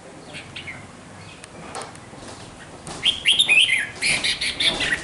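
A bird chirping: a few faint calls, then a louder run of quick chirps from about three seconds in.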